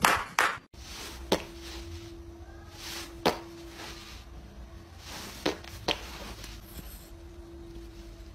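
A faint steady hum in a quiet room, with a handful of sharp taps or clicks spread several seconds apart. A brief louder sound cuts off abruptly within the first second.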